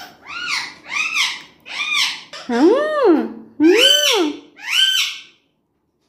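Congo African grey parrot giving six whistled calls, each rising and falling in pitch; the fourth and fifth are lower, longer and louder.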